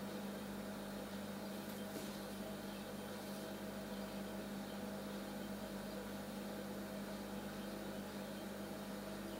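Steady electrical hum with hiss, unchanging throughout, with a couple of faint ticks about two and three seconds in.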